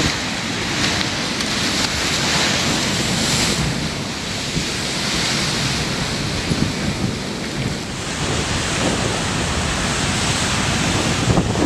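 Ocean surf: waves breaking and washing ashore in a steady rush that swells and eases, with wind buffeting the microphone.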